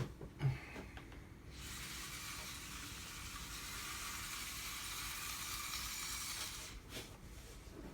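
Small electric servo or gear motors of a 3D-printed radio-controlled excavator running steadily for about five seconds, a thin even whir, after a couple of short knocks near the start.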